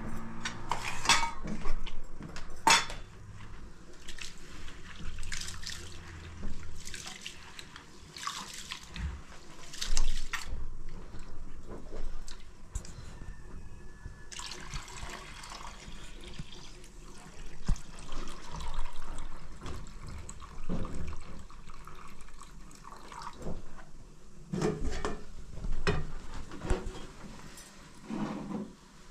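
Water sloshing and splashing as grain is swished by hand in a plastic bowl of water and the water is poured off, in irregular splashes and drips.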